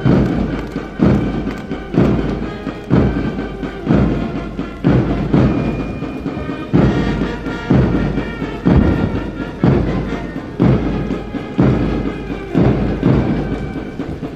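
Marching band music with a heavy bass drum stroke about once a second over sustained brass-like tones.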